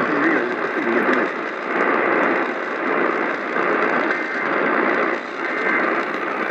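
AM radio static: a steady hiss and crackle from the receiver, swelling and fading roughly once a second.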